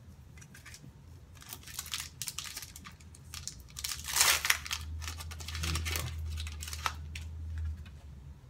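Foil wrapper of a Pokémon trading-card booster pack crinkling in the hands and being torn open, with irregular crackles and the loudest rip about four seconds in.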